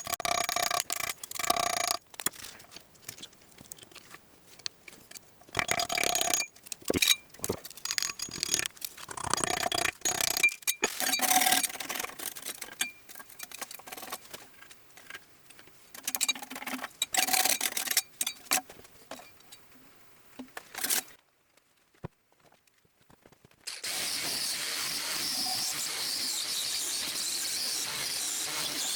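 Metal turbine parts being handled and moved about, with irregular clinks, knocks and scrapes, some of them ringing briefly. After a short break about three-quarters of the way in, a steady abrasive rubbing starts, like sanding a surface.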